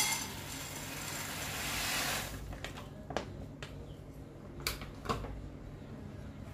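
Shelled watermelon seeds poured from a plastic packet into an empty nonstick frying pan: a dense, even rush of seeds hitting the pan for about two seconds, then stopping. A few scattered light clicks follow, over a low steady hum.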